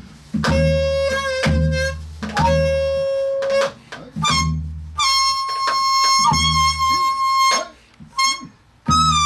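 Daegeum, the Korean bamboo transverse flute, played solo: a slow melody of long held notes, several with a slow wavering pitch, broken by short pauses for breath, moving to higher notes in the second half.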